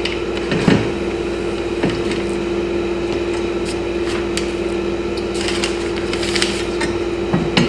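Scattered knocks, clicks and scrapes of metal bolts and headlight bracket parts being handled and fitted in a car's front end, over a steady hum.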